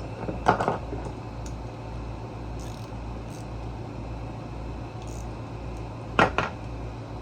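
Small parts and hand tools clicking and clacking during hand work on a generator's carburetor, with two louder clacks about half a second in and near the end and a few faint ticks between, over a steady low hum.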